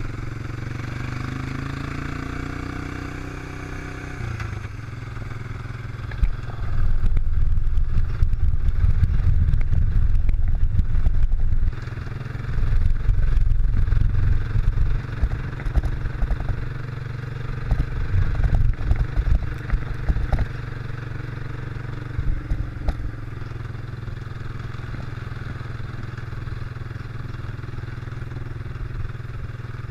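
ATV engine running as it drives along a dirt trail, its pitch rising over the first few seconds. Stretches of loud, rough low rumble come and go from about six to twenty seconds in.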